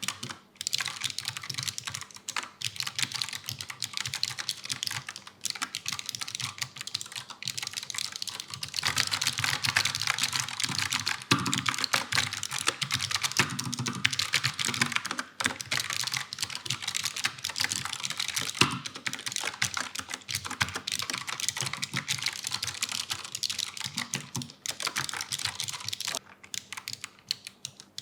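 Fast typing on a Gconic A75 low-profile mechanical keyboard with Brown tactile switches: a rapid, continuous clatter of keystrokes. It is densest through the middle and thins out near the end.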